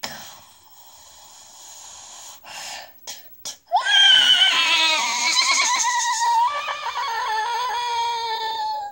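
An animated caveman character's long, high-pitched, wavering scream, starting about four seconds in after a few faint short sounds, played from a TV soundtrack and picked up off the TV speaker.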